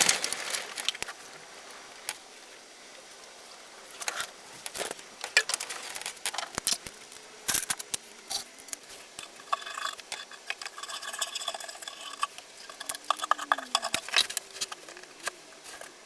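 Workshop handling sounds as tools and hardware are worked on a wooden table: scattered light clicks and knocks, with a rapid rattling run of clicks about ten seconds in.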